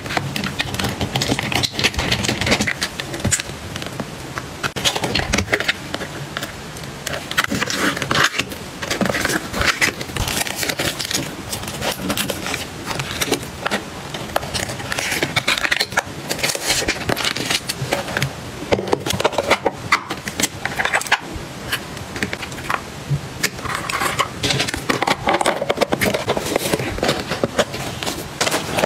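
Plastic phone cases and paper stationery being handled and packed: an irregular run of light plastic clicks and taps mixed with paper and card rustling.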